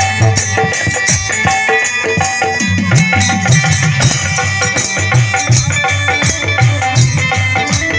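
Live Bhagait folk music: a dholak drum beats a quick steady rhythm with jingling hand percussion, over keyboard and harmonium.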